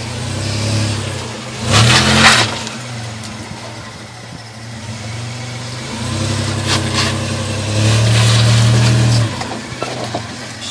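Toyota 4Runner's engine revving in surges as it crawls over rocks at low speed, loudest with a rough scraping crunch about two seconds in and a held rev near the end that cuts back suddenly.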